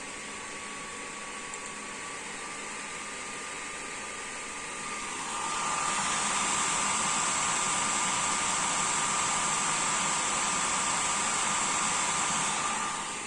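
Asus RTX 2060 Turbo blower-style graphics card fan running at high speed, set to 90%: a steady rushing of air with a thin whine. It spins up and gets louder about five seconds in, then eases off near the end; extremely noisy.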